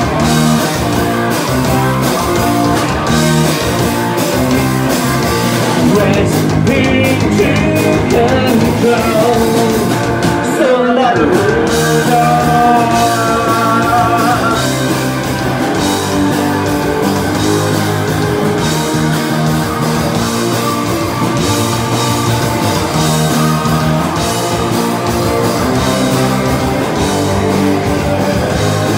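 Live rock band playing loud: an electric guitar plays a lead line over bass guitar and drums, with singing.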